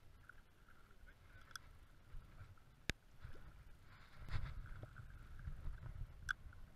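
Low, uneven wind rumble on the microphone with clicks and rustles from a spinning rod and reel being handled: a sharp click about three seconds in, a louder burst of handling noise around four seconds, and another click near the end.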